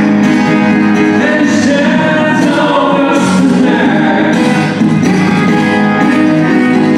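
A man singing live with acoustic guitar accompaniment, amplified through a microphone.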